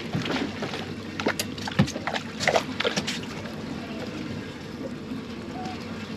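Water sloshing and splashing around a fishing boat, with a few sharp knocks and clatters on board in the first half.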